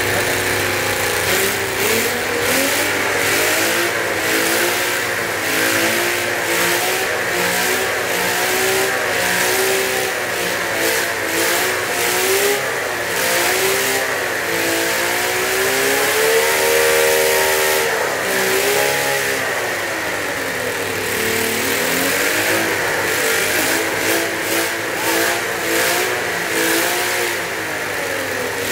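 Air-cooled 87 cc model V12 engine running on methanol with 15% nitromethane, its speed rising and falling over and over. It climbs highest a little past the middle, then drops and picks up again.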